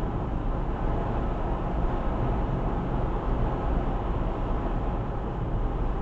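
Steady road and tyre noise heard inside a moving car's cabin: an even low rumble with no distinct events.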